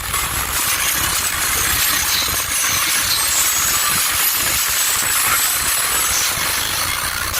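Car subwoofers, four American Bass HD D1 15s, playing deep bass at high power inside the car, with the air they push buffeting the microphone into a steady hissing rush over a low, fluttering rumble.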